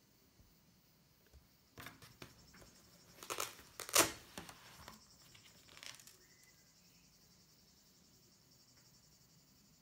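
Faint rustling and scratchy scraping as a small hidden spy bug is pulled out of a laptop cover by hand: a cluster of sharp noises from about two to six seconds in, loudest near four seconds.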